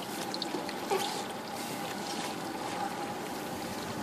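Water lapping and sloshing against the side of a small fiberglass boat as a large alligator is held alongside, with one short knock about a second in.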